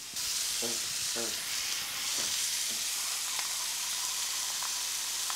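Thin ground-beef burger patty frying in a hot cast-iron skillet, a steady even sizzle that starts up abruptly just after the start.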